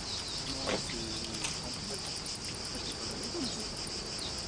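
Insects chirring steadily in a continuous high-pitched band.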